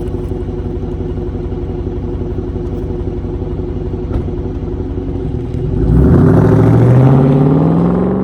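Dodge Charger Daytona's Hemi V8 exhaust through dual Jones turbine mufflers, running low and steady with an even pulsing rumble, then accelerating about six seconds in, getting louder with the pitch rising steadily.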